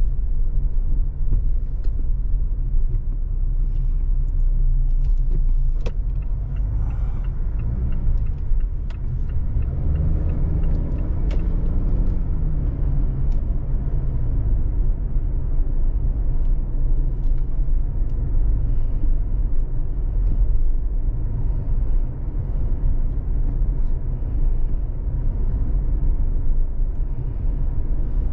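Car driving, heard from inside the cabin: a steady low engine and road rumble, with the engine note rising and then falling about ten seconds in.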